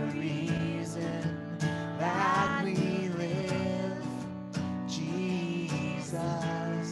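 Slow worship song: acoustic guitar strummed, with a man and a woman singing.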